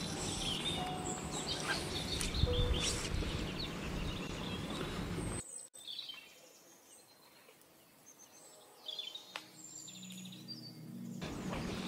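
Small birds chirping over a steady outdoor background hiss. The hiss drops away abruptly about five seconds in, leaving faint chirps, and comes back near the end.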